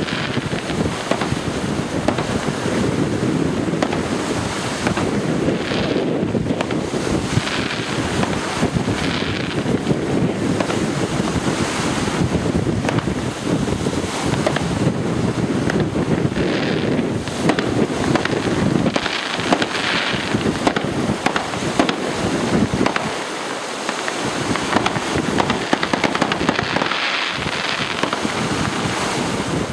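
Fireworks going off: a steady run of pops and crackles from bursting shells, with a few hissing spells, against wind noise on the microphone.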